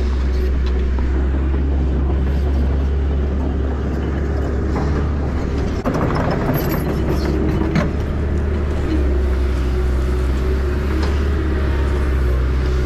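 A heavy machine's engine running steadily with a deep, even hum, with a few short knocks or clanks about five to eight seconds in.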